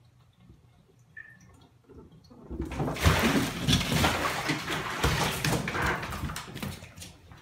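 A cat splashing about in a bathtub full of water and scrambling out over the tub's edge. The splashing starts suddenly about two and a half seconds in, is loud, and dies down near the end.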